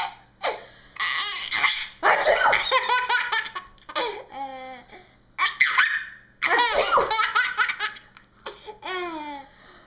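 Baby laughing hard in about half a dozen bursts of belly laughs, separated by short breaths, with a couple of longer sliding squeals.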